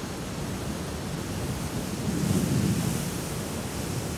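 Wind and waves on a lake: a steady rushing noise that swells for about a second midway.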